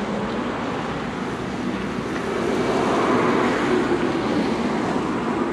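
Outdoor traffic rush with wind on the microphone: a steady noise that swells for a second or two in the middle as a vehicle goes by.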